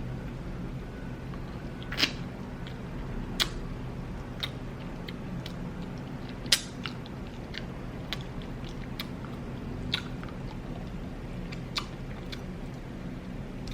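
Close-miked chewing and eating of soft, tender braised oxtail and rice, with a handful of sharp mouth or utensil clicks spaced a second or more apart, over a faint steady low hum.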